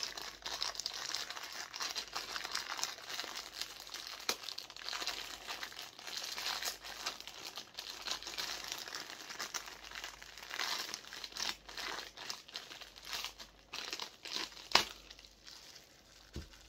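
Crinkly plastic wrapping being handled and pulled off a vinyl figure, a dense run of crackles with one sharper crack near the end.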